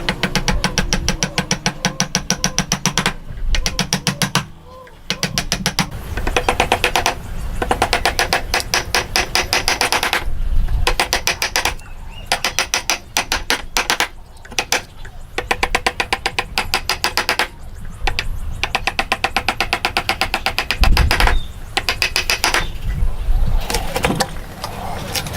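Hand saw cutting wood in quick, even strokes, in runs of a few seconds broken by short pauses.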